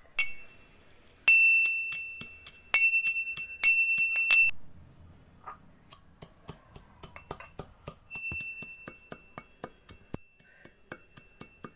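Roasted cloves being pounded with a pestle in a metal mortar: a few hard strikes, each ringing out with a clear bell-like tone, then quicker, lighter taps, several a second, as the cloves are crushed fine.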